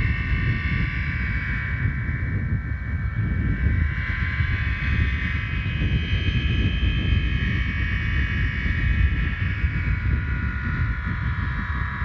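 Homemade aeolian harp, its fishing-line strings stretched on a plastic water-pipe frame, sounding in the wind: several steady, high, overlapping tones that swell in the middle and fade toward the end, over wind rumbling on the microphone.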